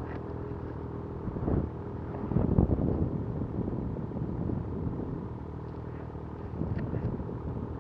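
Ski-Doo 850 two-stroke snowmobile engine idling steadily, swelling briefly about two and a half seconds in.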